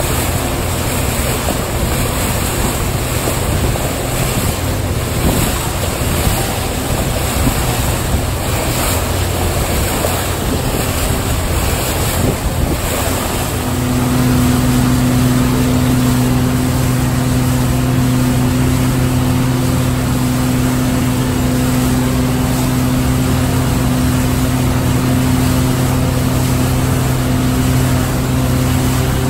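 Motorboat running at speed: water rushing and spraying along the hull with wind noise. About halfway through, the outboard motor's steady low drone comes in strongly and holds.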